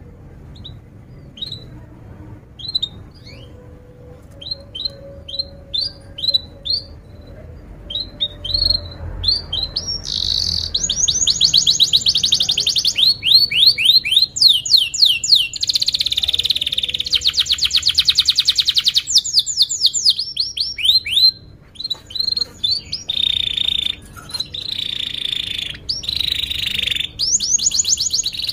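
Domestic canary singing: spaced short chirps for about the first ten seconds, then long, rapid, loud trills and rolls.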